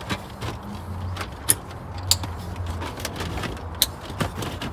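Plastic centre dash trim bezel of a 2003 Toyota 4Runner being handled and pressed into place around the head unit: a scattering of sharp plastic clicks and knocks, about five of them, as it is pushed and snapped home.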